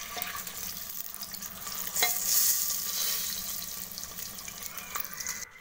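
Whole boiled eggs sizzling as they fry in hot turmeric oil in an aluminium pressure cooker, with a spatula scraping and clicking against the pot as the eggs are turned. The sizzle swells about two seconds in.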